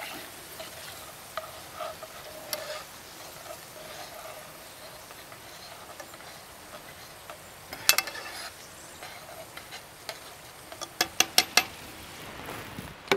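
A metal spoon stirring a cornstarch slurry into boiling beef-broth gravy in a skillet, over a soft bubbling sizzle. The spoon clinks sharply against the pan a few times about eight seconds in, then taps in a quick run of clinks near the end.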